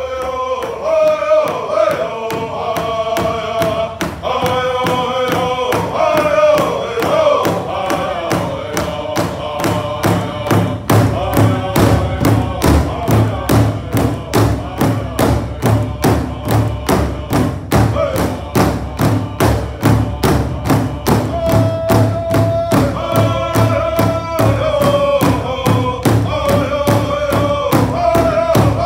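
Powwow drum group singing together over a steady beat of several sticks on one large powwow drum, a little over two beats a second. The singing is strongest near the start and again over the last third, with the drumbeat carrying the softer middle.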